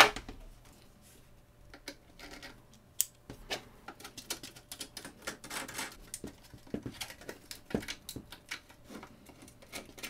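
A sharp knock at the very start, the loudest sound, then many small irregular clicks and scrapes of a precision screwdriver working the hex standoff screws out of a computer's metal back panel.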